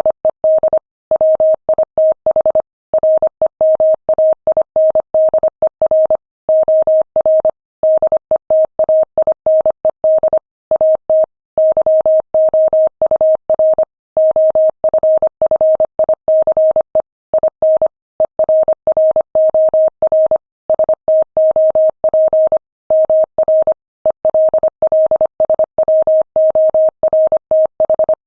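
Morse code sent at 25 words per minute: a single mid-pitched tone keyed on and off in quick dots and dashes, with short pauses between words.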